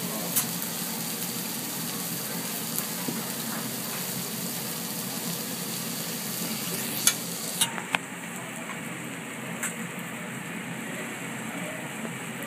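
Food sizzling on a hot hibachi teppanyaki griddle, with a few sharp clicks of a metal spatula on the steel plate. The hiss thins a little after halfway.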